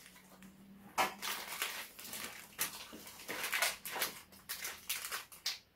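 Plastic and foil ration packets crinkling and rustling as they are handled and opened, in short irregular crackles.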